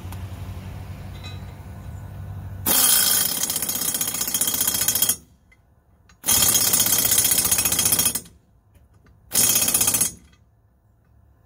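Pneumatic impact wrench hammering in three bursts, a long one, a shorter one and a brief one, driving a new exhaust stud into a cast-iron exhaust manifold until it seats.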